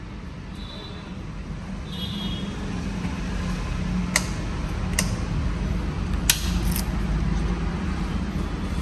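KTM RC390's single-cylinder engine running at a low, steady idle after a rev, with a few short sharp clicks about four, five and six seconds in.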